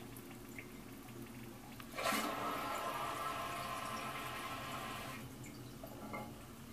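Toilet running by itself: a sudden rush of hissing water starts about two seconds in, runs for about three seconds and then cuts off.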